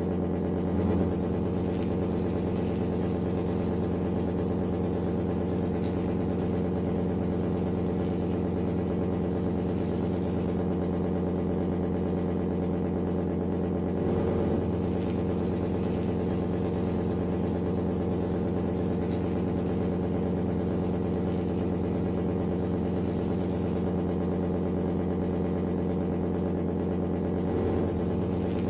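Steady diesel-like engine idle sound with an even hum, swelling briefly about a second in, halfway through and near the end.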